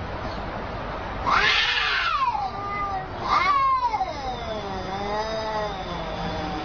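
Two cats in a face-off, yowling at each other in long, wavering, rising and falling yowls, with two louder, harsher cries near one and a half and three and a half seconds in.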